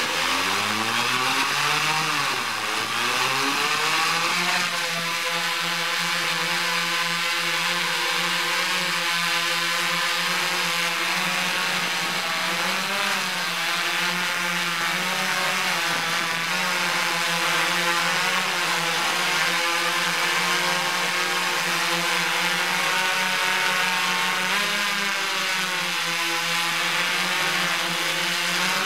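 Electric motors and propellers of a hexacopter spinning up for takeoff, rising in pitch with a brief dip over the first few seconds. It then settles into a steady buzzing drone in flight, the pitch wavering slightly.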